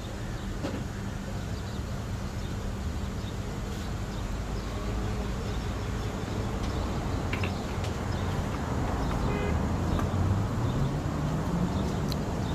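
Steady background road-traffic noise with a low hum, a vehicle engine rising in pitch near the end.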